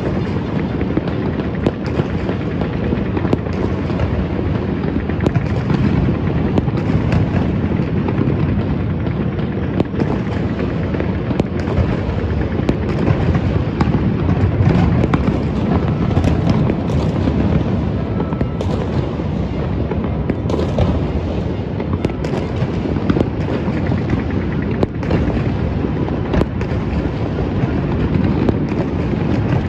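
A dense, continuous barrage of New Year fireworks and firecrackers: many overlapping bangs and booms with no pause, over a steady crackling rumble.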